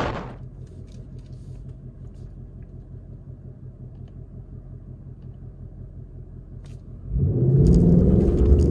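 Ford Mustang GT's 5.0-litre V8 settling from high revs to a steady low idle in the first half-second. About seven seconds in it suddenly revs up and pulls hard under acceleration, the pitch climbing.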